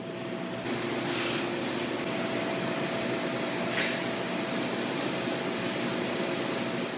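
Steady room hum with a faint hiss and two low steady tones, broken by a couple of short faint clicks.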